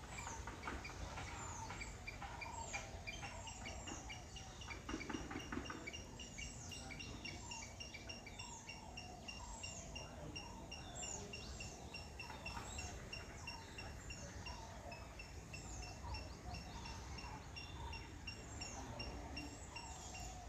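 Several birds chirping with short, falling high calls. From about three seconds in, one keeps up a fast, even series of repeated high notes. A low rumble runs underneath.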